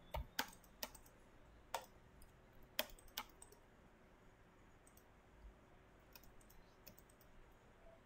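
Computer mouse and keyboard clicks: about six sharp clicks in the first three and a half seconds, then only a few faint ticks.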